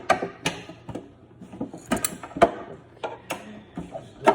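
Sharp clicks and knocks of hard plastic as the parts of a Samsung refrigerator drawer are snapped together and handled, several taps spread about a second apart.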